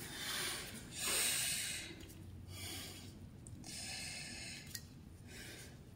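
Raw chicken breast being rinsed with gloved hands over a stainless steel sink: about five short hissing splashes of water, the loudest about a second in.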